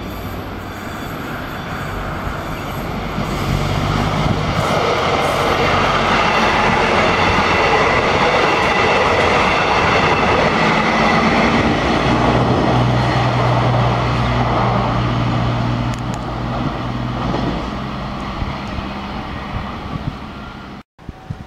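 KRDE diesel-electric multiple unit (the KCJB feeder train) passing close by, its diesel engines droning under the steady noise of its wheels on the rails. The sound builds over the first few seconds, holds loud for about ten seconds, then eases off and cuts off abruptly near the end.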